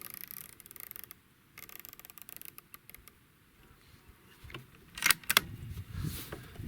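Elevation turret of a Feyachi RFS-21 6-24x50 rifle scope clicking rapidly as it is dialed upward, in two quick runs of clicks, then a couple of louder sharp clicks about five seconds in. The scope is being cranked toward the top of its elevation travel because it does not seem to be adjusting well.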